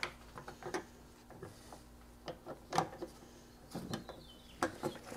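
Irregular light clicks and knocks of a hand tool fitting and turning a metal nut on a car's body panel, the loudest a little under 3 seconds in.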